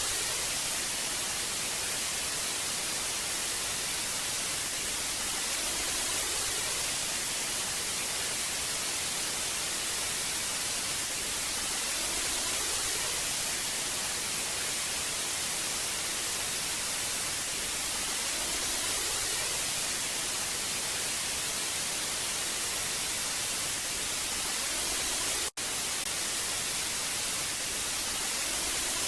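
Old analogue television static: a steady, even hiss, brightest in the treble, with one split-second dropout near the end.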